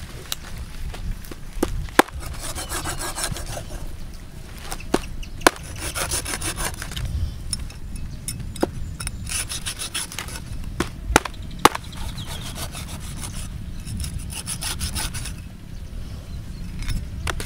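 A large cleaver sawing back and forth through a stingray's wing on a wooden chopping block, making runs of rapid rasping scrapes. A few sharp knocks of the blade on the board cut through it.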